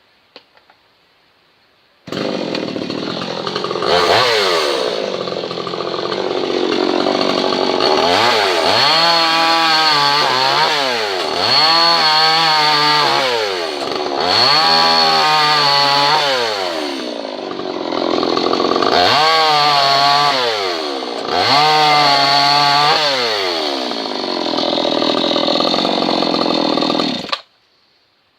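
58 cc Land Master two-stroke chainsaw running hard, starting abruptly about two seconds in and cutting off suddenly near the end. Its engine pitch drops and climbs again several times as it revs and bites into a wooden fence post.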